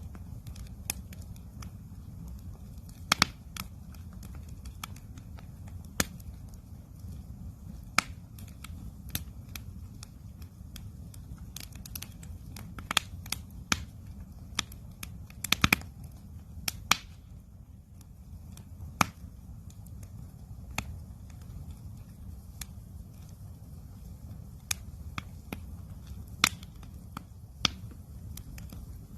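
Wood campfire crackling and popping: sharp irregular snaps every second or two, a few louder pops among them, over a steady low rumble of the burning fire.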